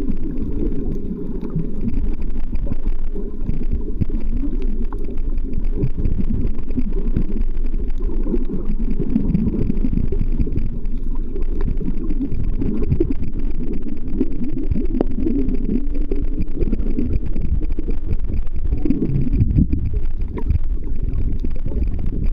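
Muffled underwater water noise on a camera: a steady low rumble of water moving against the housing, with scattered faint clicks.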